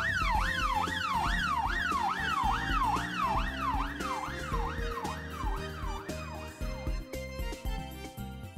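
Emergency vehicle siren in a fast yelp, its pitch sweeping up and down about two and a half times a second, fading out over the last couple of seconds. Background music with a steady beat plays under it.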